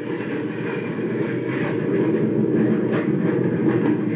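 Radio-drama sound effect of a jet interceptor in flight: a steady rumbling engine roar that grows a little louder.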